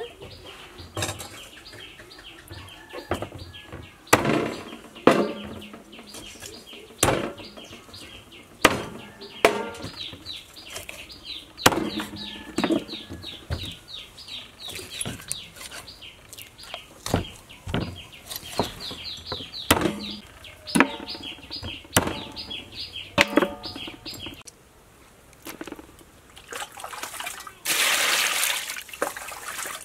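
Cleaver chopping raw chicken on a cutting board: sharp, irregular chops, roughly one a second. Near the end, water starts running as the chicken is washed.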